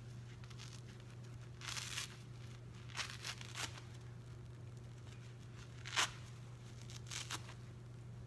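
A wet, soapy kitchen sponge with a scouring layer being torn apart by hand. There are several short ripping tears, the sharpest about six seconds in.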